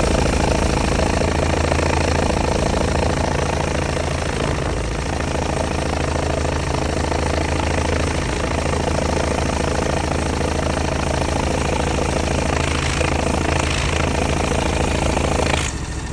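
Kawasaki V-twin engine of a John Deere X720 riding mower running steadily with the oil filler cap off. Plenty of air blows out of the open filler, which the owner thinks may point to a piston ring problem. The sound drops in level shortly before the end.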